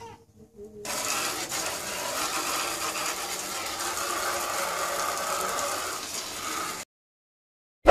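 Thin, forceful jet of water hissing from a garden-hose nozzle and spattering against a motor scooter, its pressure boosted by a homemade gallon-jug pressure chamber. The spray starts about a second in and cuts off suddenly near the end, followed by one sharp loud knock right at the end.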